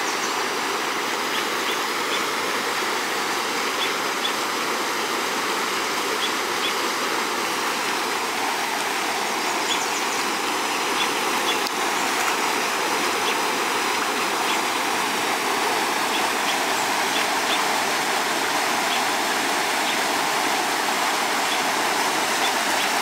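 Water pouring steadily out of a concrete dam outlet and churning into the pool below: a constant, unbroken rush.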